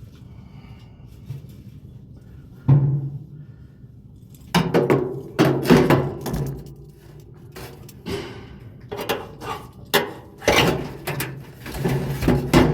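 Irregular clanks and knocks with short ringing tails from metal parts and tools being handled inside a clothes dryer's sheet-metal cabinet while its idler pulley is being replaced.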